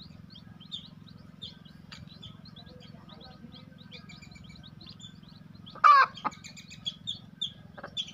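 Chicks peeping continually in short high chirps, with one louder, brief chicken call about six seconds in. A few faint crackles come from dry termite mound being crumbled by hand.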